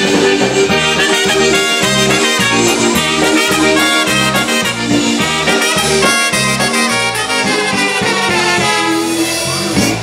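Live polka band playing an instrumental break: two trumpets carry the melody over accordions and a steady, pulsing bass beat.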